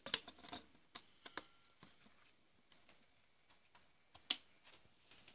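Scattered sharp clicks and taps from a hand working the knobs and buttons of a 1-DIN Android car radio. Several come in the first second and a half, with a short faint tone in among them, and the loudest single click comes about four seconds in.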